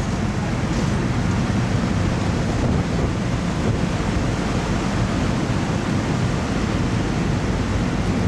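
Steady wind rushing over the open deck of a car ferry and buffeting the microphone, a dense low rumbling noise with no pauses.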